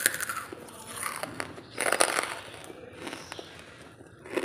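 Dry lump charcoal crunching as it is bitten and chewed, in a few crisp bursts, the loudest about two seconds in.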